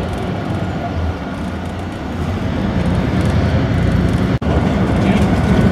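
Bus engine and road noise heard from inside the moving bus: a steady low rumble that grows louder about halfway through, with a sudden momentary drop-out near the end.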